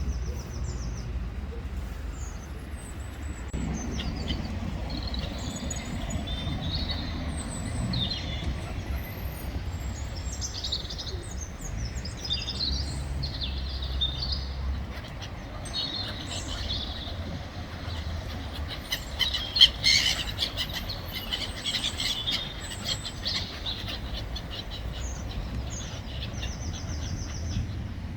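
Small birds chirping in short high calls over a steady low rumble like distant traffic, with one sharp, louder sound about twenty seconds in.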